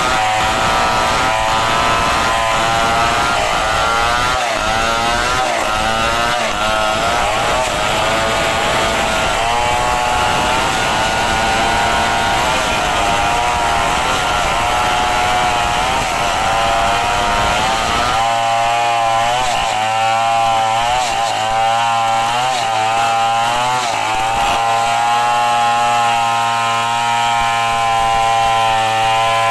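Two-stroke chainsaws cutting into a heavy wooden beam together, their engine pitch wavering up and down as they bog and recover under load. About two-thirds of the way through the sound thins to what fits a single Stihl chainsaw still cutting.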